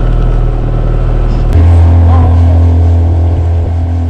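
Small outboard motor running steadily with the boat under way, a steady low drone; about a second and a half in, the note drops lower.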